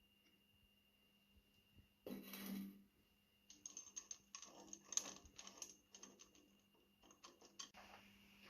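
Small metal parts being handled: a brief scrape about two seconds in, then a run of light clicks and clinks.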